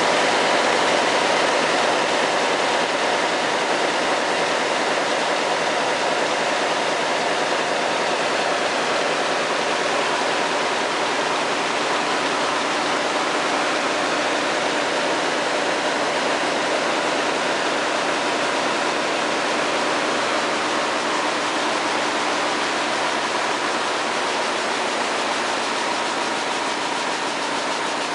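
Picanol weaving loom running at speed: a loud, steady, dense mechanical clatter with no pauses.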